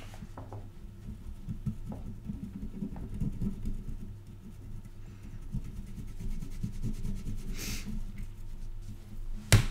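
Handling noise from bench work on a circuit board: low rubbing and scattered small clicks, a brief hiss a little before the end, and one sharp click just before it ends.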